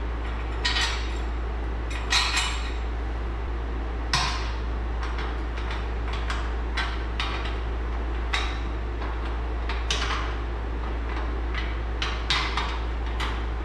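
Steel bolts, washers and nuts clinking against the steel brackets and frame of a shop press as they are fitted by hand: irregular light metallic clicks and clinks, over a steady low hum.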